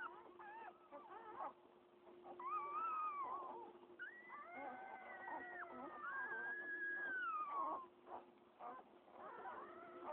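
Newborn pit bull puppies squealing and whining: several high, wavering cries overlap. The longest is held for a few seconds from about four seconds in.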